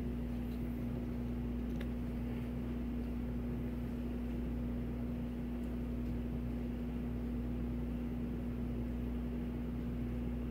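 Steady mechanical hum with one constant low tone, running evenly throughout.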